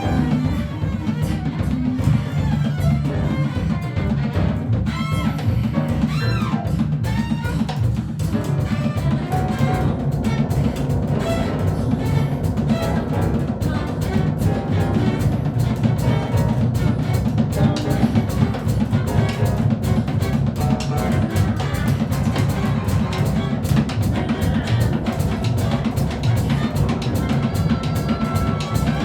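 Improvised ensemble music: a drum kit keeps up a busy rhythm under bowed strings and sustained low tones, with some sliding high notes about five to seven seconds in.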